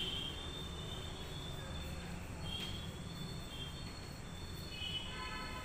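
Chalk writing on a blackboard, with faint, short, high-pitched squeaks that come and go irregularly as the letters are drawn.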